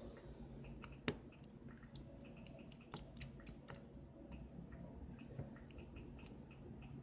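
Small screwdriver and tools clicking and tapping against a phone's internal frame and tiny screws as they are taken out, in scattered light ticks, with two sharper clicks about a second in.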